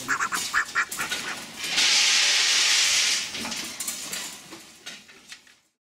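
Caged ducks making short, sharp calls, then a loud steady hiss lasting about a second and a half; the sound fades out near the end.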